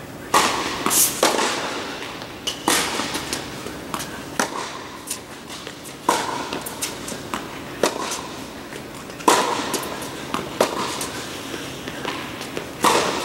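Tennis ball rally in an echoing indoor hall: sharp pops of racquet strikes and ball bounces every second or two, each ringing briefly in the hall.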